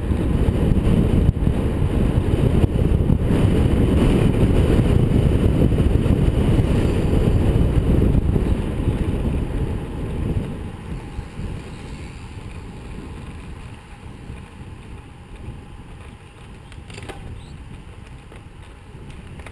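Wind buffeting the microphone of a camera on a road bike descending at speed, a loud rumbling rush that eases off about halfway through.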